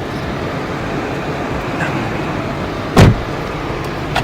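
Steady noise of a car running, with one loud thump about three seconds in.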